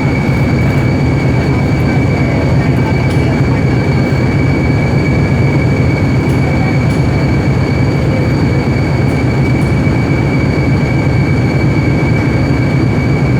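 Argon (TIG) welding: a steady, loud buzzing hum with a constant high whine over it, unbroken throughout.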